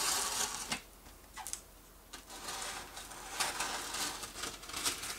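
Utility knife slicing through packing tape on a cardboard box, scratchy scraping strokes with rustling cardboard: a long stroke at the start, then more scraping and ticks from about halfway through.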